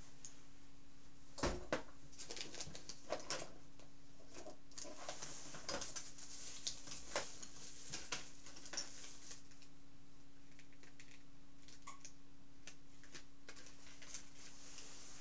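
Scattered light clicks and taps, loudest and closest together in the first half, over a faint steady hum.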